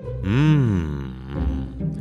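Background music with one low sound effect near the start that rises and then falls in pitch over about half a second.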